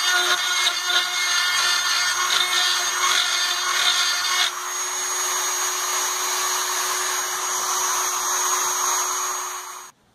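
Dremel rotary tool with a guide attachment running at high speed with a steady whine, its bit grinding the rough edges of plywood kit parts. About four and a half seconds in, the grinding noise drops away and the tool spins free with a smoother sound, then cuts off suddenly near the end.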